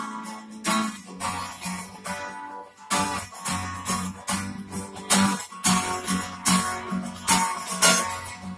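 Acoustic guitar strummed in a steady rhythm, the strumming growing louder and fuller, with more low notes, about three seconds in.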